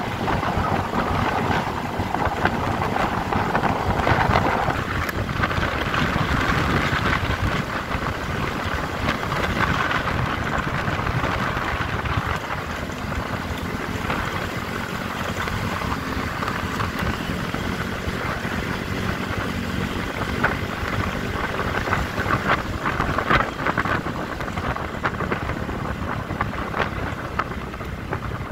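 Yamaha scooter under way on a paved road at about 30 to 45 km/h: engine running with tyre and road noise, and wind buffeting the microphone.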